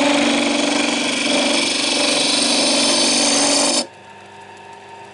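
A power tool's motor running loud and steady with a droning tone, then switched off abruptly about four seconds in, leaving a faint steady hum.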